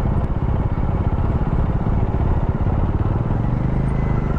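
Motorcycle engine running at low speed close by as the bike rolls slowly onto a ferry deck, a steady stream of rapid low firing pulses.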